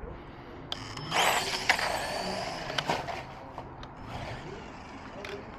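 Battery-powered radio-controlled car driving on asphalt, with a burst of motor and tyre noise lasting a second or two, plus a few sharp clicks.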